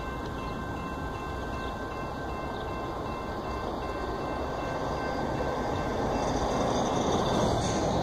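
Amtrak Superliner bilevel passenger cars rolling past, a steady rumble of wheels on the rails that grows louder near the end.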